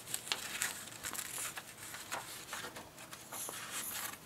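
Pencil scratching on a strip of paper in short, irregular strokes as a message is handwritten.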